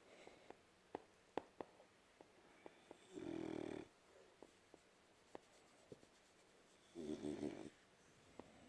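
French bulldog snoring in its sleep: two snores about four seconds apart, each just under a second long, with faint clicks in between. A snore like this is typical of the breed's short, flat-faced airway.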